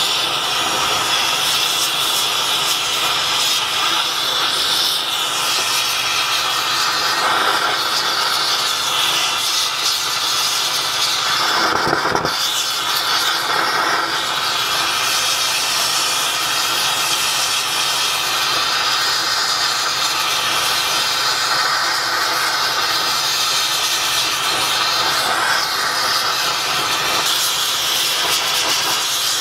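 Large oxy-propane torch flame running with a steady, loud hiss, heating a copper boiler firebox backplate for silver soldering. The sound changes briefly about twelve seconds in.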